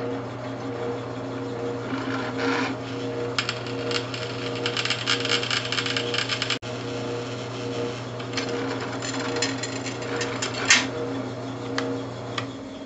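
Drill press running with a steady motor hum while its bit drills through a flat metal bar, with stretches of gritty cutting noise. The motor shuts off near the end.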